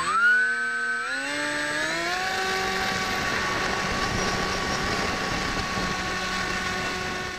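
An FPV model aircraft's motor and propeller, heard from on board: the pitch rises quickly as the throttle opens, levels off about two seconds in, and then holds a steady drone.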